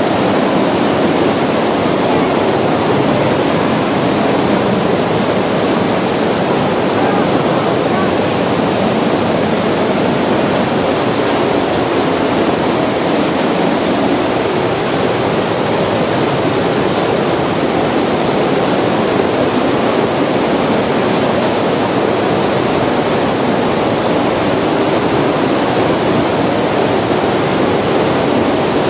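Whitewater river rushing through a narrow rock gorge: a loud, steady rush of water.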